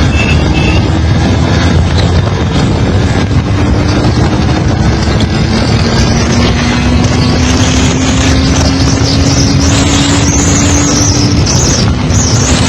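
Kawasaki GTO 125cc two-stroke engine pulling hard at speed during a top-speed run, its note climbing slowly in pitch, with a short break near the end. Heavy wind noise on the microphone from riding at speed.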